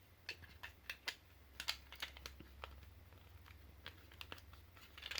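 Small plastic pieces of a PS4 controller being handled and fitted back into place: light, irregular clicks and taps, a quick cluster in the first two seconds or so, then sparser ones with another near the end.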